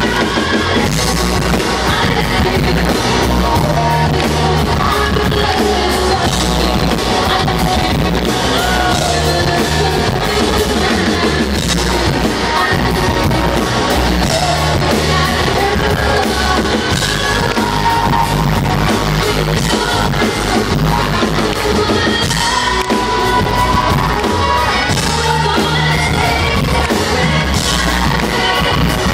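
Live rock band: a woman singing into a microphone over a drum kit and amplified instruments, loud and continuous.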